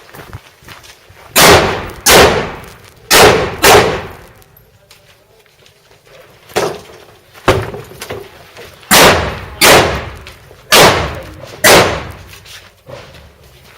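Rifle shots in quick pairs: about ten loud shots, two at a time about half a second apart, with pauses of one to three seconds between the pairs.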